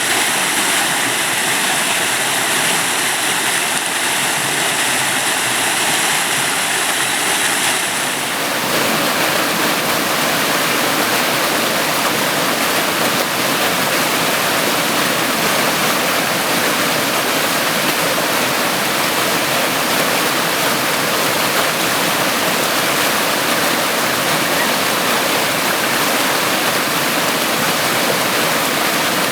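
Waterfall: a steady rush of falling water. About eight seconds in, the sound changes abruptly to a fuller, denser rush.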